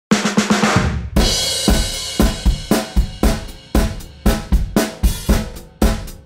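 Upbeat anime soundtrack music: it opens with a quick drum fill, a cymbal crash about a second in, then a full band with drum kit keeping a steady beat of about two hits a second under sustained chords.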